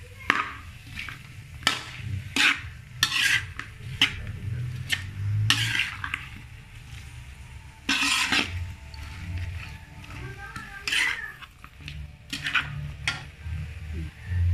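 Metal spatula scraping and stirring prawns and choy sum around a wok during stir-frying, in irregular strokes about once a second.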